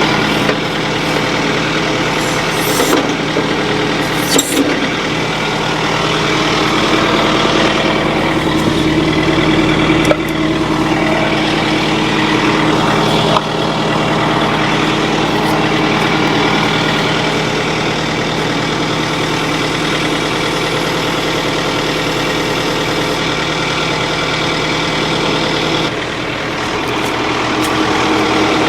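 Compact tractor engine running steadily while its hydraulics raise the backhoe's stabilizer arms, with a few short metallic knocks. The engine note drops and changes near the end.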